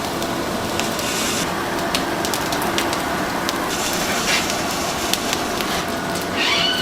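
Wood fire crackling, with scattered sharp snaps over a steady hiss.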